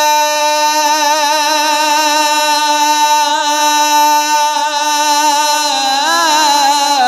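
A man singing a naat, holding one long note with a slight waver and no instruments, then turning the melody in a short run of moving pitch about six seconds in.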